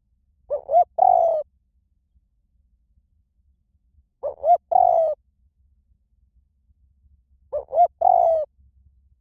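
Spotted dove cooing: three calls, about three and a half seconds apart, each two short rising notes followed by a longer falling coo.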